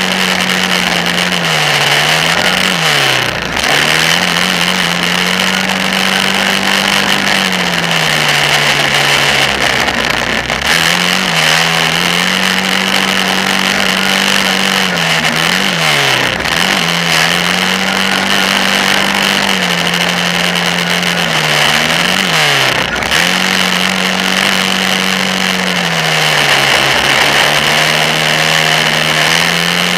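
Kawasaki Brute Force 650 ATV's V-twin engine running hard around a dirt motocross track. The engine note holds steady, then falls away sharply and picks back up about four times as the throttle is let off and reapplied. A steady hiss runs over the top throughout.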